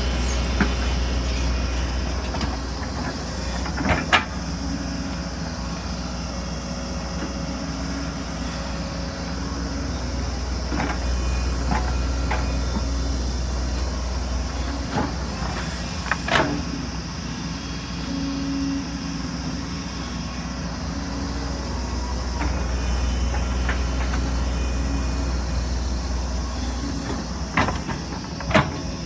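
Hydraulic excavator's diesel engine running steadily under load, with a few sharp metallic clanks about four, sixteen and twenty-eight seconds in.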